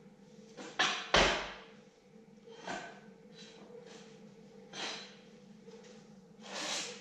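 Heavy steel tow-hook parts being handled and set down on a wooden pallet: several separate clanks and scrapes, the loudest about a second in, over a steady low hum.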